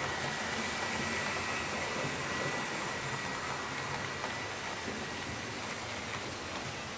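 HO scale model train running on the layout track: a steady rushing of wheels on rails, with a thin high whine that fades away late on.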